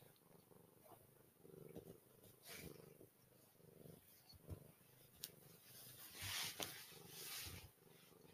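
Domestic cat purring faintly and steadily while being stroked, with cloth rustling over it, loudest about six to seven seconds in, and one sharp click about five seconds in.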